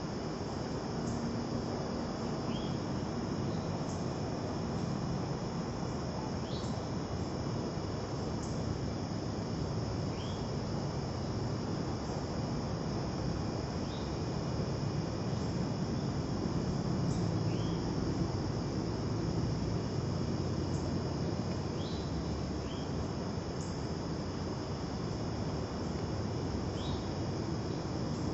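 Steady high-pitched insect chorus droning without a break, with short high chirps every couple of seconds over a low, even background hiss.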